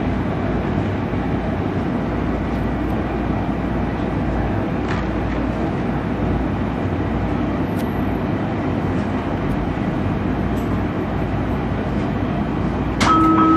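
Washington Metro Breda rehab railcar running through a tunnel, heard from inside the car: a steady rumble and roar of wheels and running gear. Near the end, a short electronic tone sounds.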